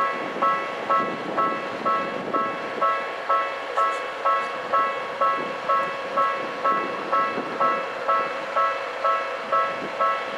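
Japanese level-crossing warning bell ringing steadily, about two strikes a second, with a Tokyu 1500 series electric train running over the crossing underneath.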